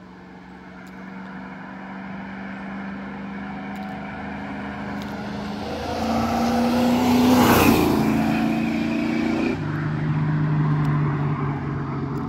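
A car approaches and drives past on a wet road. Its engine note grows louder, dips in pitch as it passes about seven and a half seconds in with a rush of tyre hiss off the wet asphalt, then fades as it drives away. About two seconds after the pass the engine note drops suddenly to a lower tone.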